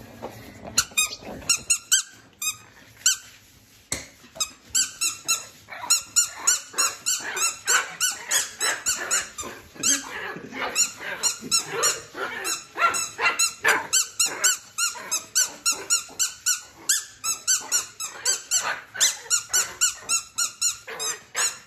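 Spiky squeaky ball toy squeezed over and over, squeaking in quick short bursts. The squeaks come about three a second and are sparser in the first few seconds.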